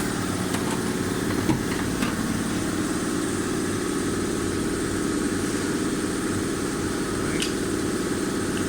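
Steady mechanical drone of an engine or motor running at idle, with a few faint clicks.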